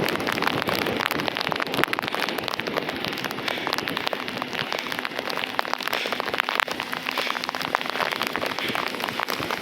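Rain falling on surfaces: a steady, dense run of small drop impacts.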